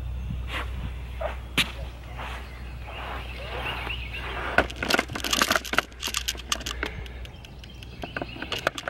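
Camera handling noise: a few sharp clicks, then from about halfway a dense run of clicks, knocks and rustles as the camera is picked up and moved in close. A low steady rumble underneath stops near the end.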